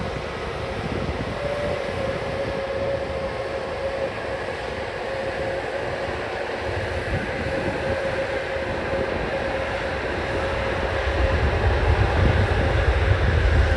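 Airbus A321neo jet engines running on the runway: a steady whine over a rushing rumble, the deep rumble swelling louder near the end.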